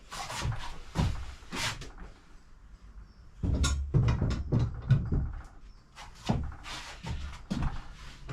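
Steel axle stand being shifted and turned by hand on the floor: a run of irregular scrapes and clunks, busiest in the middle.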